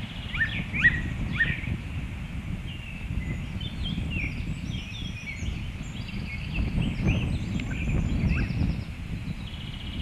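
Birds calling: three sharp, pitch-sweeping calls in the first second and a half, then fainter chirps and high buzzy notes. A low wind rumble sits on the microphone throughout.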